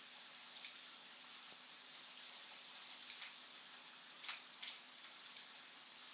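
Computer mouse button clicks: several short sharp clicks, some in quick pairs, over a faint steady hiss.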